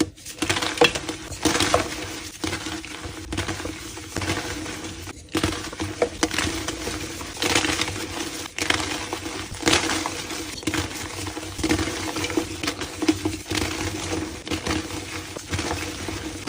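Reformed gym chalk being crushed and crumbled, a dense, irregular run of crisp crunches and small sharp cracks.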